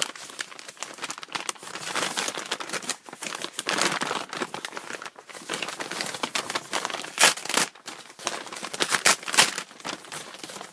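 Packaging being handled, crinkled and torn open by hand: irregular crackling and rustling throughout, with a few louder crackles in the second half.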